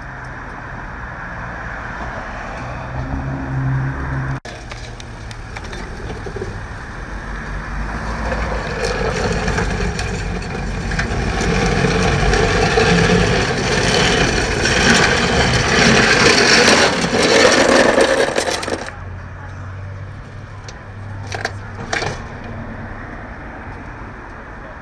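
Vehicle and street noise: a low engine hum, then a rushing, scraping noise that builds for about ten seconds and stops abruptly, followed by two short sharp clicks.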